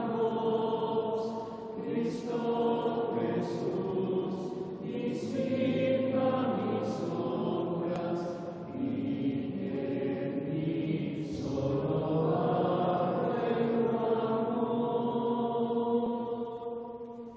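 Congregation singing a repetitive Taizé chant, several voices in harmony on long held phrases. The singing dies away near the end.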